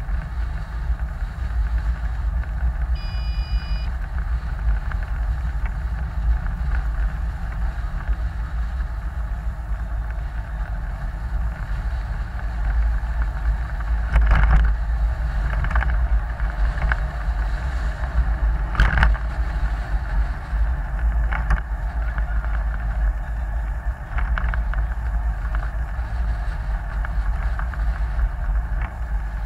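Onboard road and wind rumble of a small eco-marathon car coasting with its motor switched off: a steady, low, noisy rumble of tyres and body with no motor note. There are a few sharp knocks partway through.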